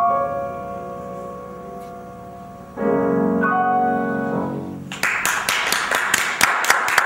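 Bösendorfer grand piano playing the closing chords of a piece: a chord struck and left to ring, then a final group of chords about three seconds in. Applause breaks out about five seconds in.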